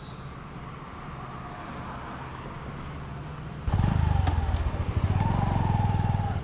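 Motorcycle engine idling with a steady low rumble, then getting much louder about three and a half seconds in as the bike pulls away.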